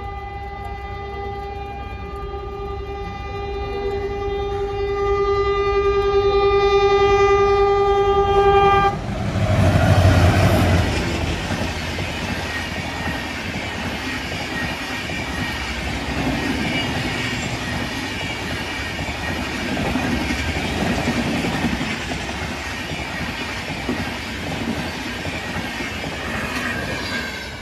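Twin ALCO diesel locomotives sound a long horn, held for about nine seconds and then cut off suddenly. They pass with a loud low engine rumble. The train's passenger coaches follow, rolling by with a steady clatter of wheels over the rail joints.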